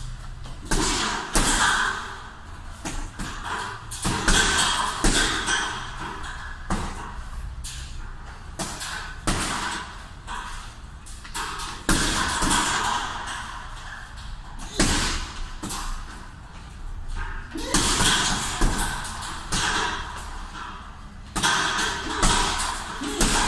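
Punches landing on a hanging heavy punching bag: a run of irregular thuds and slaps, some in quick combinations, echoing in a large room.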